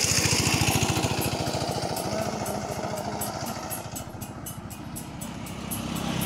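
Motorcycle engine running with a fast, even putter. It fades after a couple of seconds and builds again near the end.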